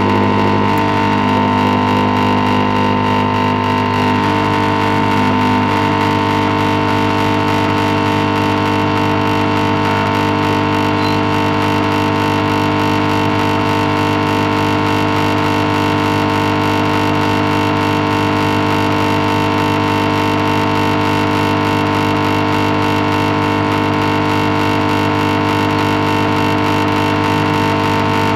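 Hot-air rework gun blowing steadily over a phone circuit board, its fan giving a constant, unchanging hum while it heats the solder joints to free the charging port.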